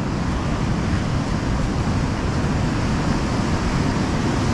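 Steady, even rush of ocean surf.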